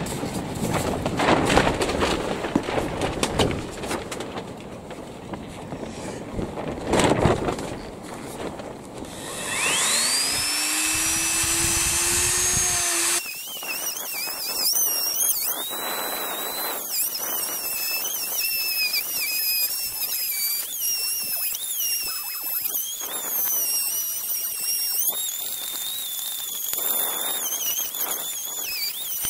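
Knocks and handling noise, then a handheld rotary tool spins up with a fast-rising whine. It runs on at high speed with a wavering high pitch as its small bit grinds around the rim of a hole cut through the fibreglass deck.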